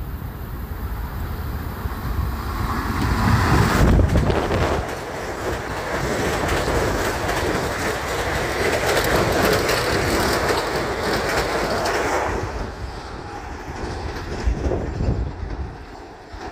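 A Long Island Rail Road train going by. It builds to its loudest about four seconds in, stays loud for about eight seconds, then drops away at about twelve seconds.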